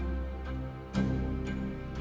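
Soft, slow background music in a tender, sad mood, with sustained notes and new notes struck about once a second.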